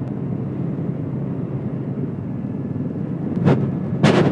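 Helicopter cabin noise: a steady low drone from the rotor and engine. About three and a half seconds in, and again near the end, brief bursts of louder rushing noise break in.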